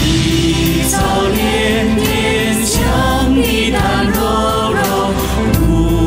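A song with sung vocals over instrumental backing and a steady low bass.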